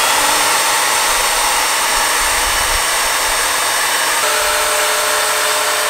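Electric plunge router running at full speed, routing a shallow groove about a quarter inch deep in Baltic birch plywood: a loud, steady high whine.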